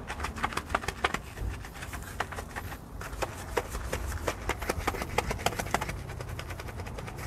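Microfibre wheel mitt scrubbing an alloy wheel coated in foaming wheel cleaner, the wet foam crackling and squelching in many small irregular clicks. A steady low engine-like hum runs underneath.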